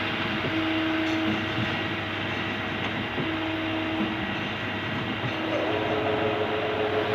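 CNC lathe running, a steady machine noise with a hum that breaks off and returns, and a higher hum taking over about five and a half seconds in.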